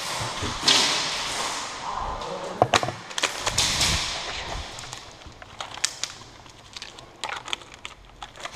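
Rustle and footsteps of a player moving fast with gear, in two rushing stretches, then scattered sharp clicks and knocks, several close together in the second half.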